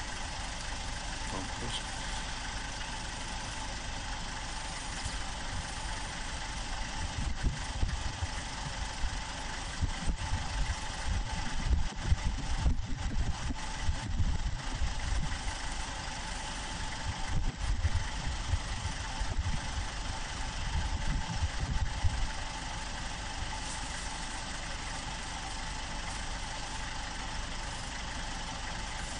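A vehicle engine idling steadily, heard from on board. Irregular low rumbles and knocks come through the middle stretch.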